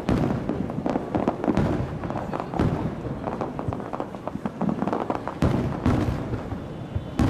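Fireworks display going off: a dense run of shell bursts and crackling, with several sharper bangs among them.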